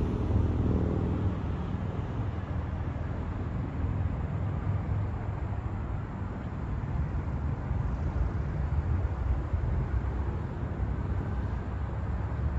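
Steady low rumble of a freight train hauled by EMD GP-series diesel locomotives.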